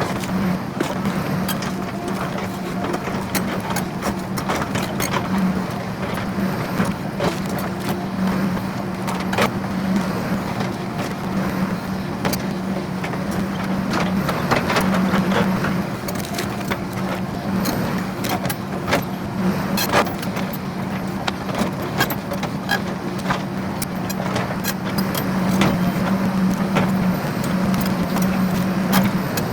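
Excavator engine running steadily, with frequent sharp cracks and snaps from the stump shear cutting and splitting a tree stump.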